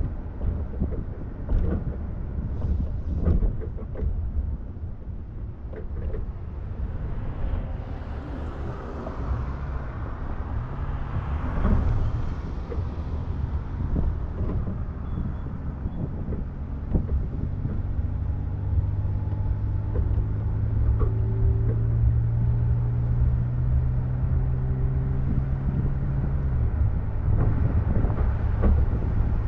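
Road rumble and wind from a boat being towed on its trailer, heard from the boat's stern. A vehicle rushes past about twelve seconds in, and an engine hum holds one pitch for several seconds in the second half before dropping away.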